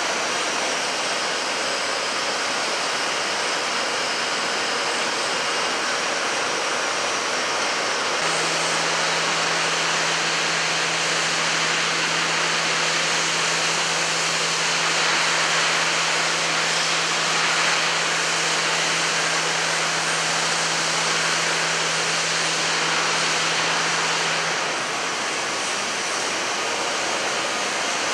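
Droop & Rein D 175 V horizontal boring and milling machine running with a steady hiss, and a steady hum that starts about a third of the way in and stops near the end.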